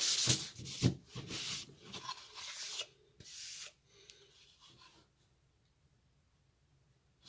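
Hand sanding of a pine board with an old piece of fine sandpaper: quick rhythmic rubbing strokes at first, then a few slower, separate strokes and light knocks as the board is handled. The rubbing stops about four seconds in.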